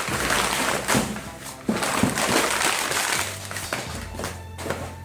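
Mailed package being cut and torn open by hand: crinkling and rustling of paper and wrapping, with a few sharp crackles.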